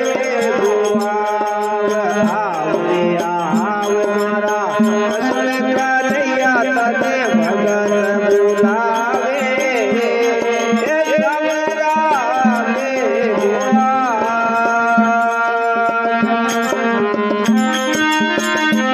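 Instrumental devotional music: a melody that bends and glides between notes over a steady low drone, with hand-drum percussion.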